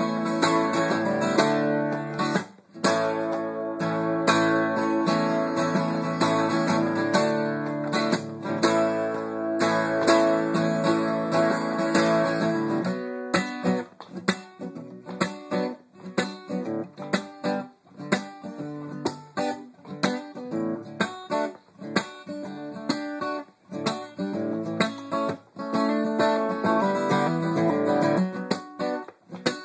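Acoustic guitar played solo, without singing: full strummed chords for the first half, then lighter, sparser playing with short pauses from about halfway through.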